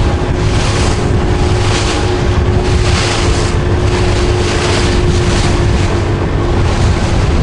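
Wind buffeting the microphone over open water, with a motorboat's engine running steadily underneath.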